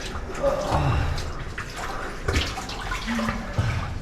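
People crawling through a tight, wet cave passage: irregular scrapes, knocks and shuffles of bodies and gear on rock, over running and dripping water in a small, enclosed space.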